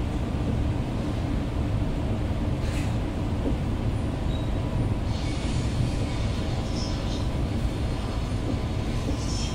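Passenger train running, heard from inside the passenger car: a steady low rumble and running noise, with a short click about three seconds in.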